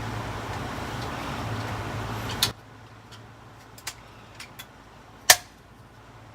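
Bandai DX Build Phone toy hissing from its speaker as its sound effect ends, cut off with a click about two and a half seconds in. Then come a few small plastic clicks and one sharp click near the end.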